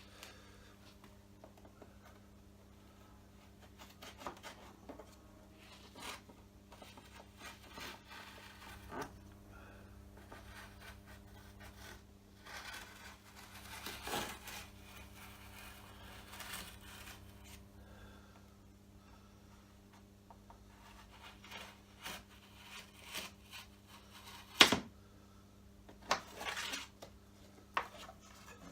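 Quiet workshop handling sounds: scattered knocks and clicks with stretches of rubbing and scraping, the sharpest knock near the end, over a steady low hum.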